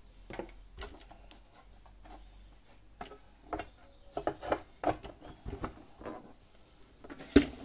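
Hard plastic air filter box halves being handled and fitted together by hand: scattered light clicks and knocks, with a louder knock near the end.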